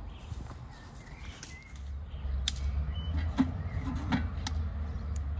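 Cast-iron kazan being set on its fire stove: its metal wire bail handle and lid give a few sharp clinks and clanks in the second half, over a steady low rumble.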